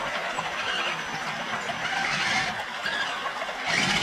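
Electric RC crawler trucks climbing a steep slope of dirt and leaf litter: motor and drivetrain running under load as the tyres scrabble through dirt and dry leaves, growing louder about two seconds in and again near the end.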